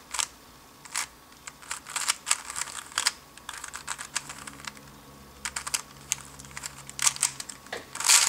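3x3 speedcube layers being turned by fingertricks, a string of quick plastic clicks and rattles with short pauses, as an F-perm algorithm is run through; a denser flurry of turns near the end.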